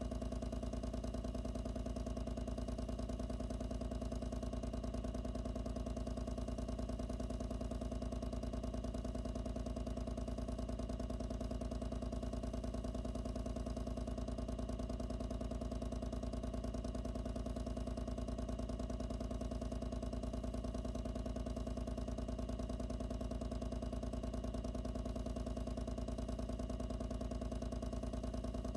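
Loud pump running steadily, picked up by a microphone inside the pump's own enclosure: a constant hum with a fast, even pulse.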